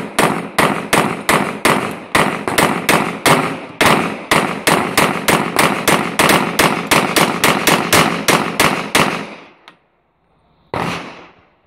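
Two 9 mm Glock 17 pistols fired alternately, one in each hand, in a fast, steady string of about four shots a second for some nine seconds. After a short pause, one more shot near the end.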